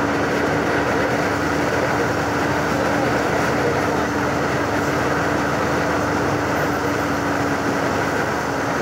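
Marcopolo G6 1200 coach running along the highway: steady engine and road noise with a constant hum.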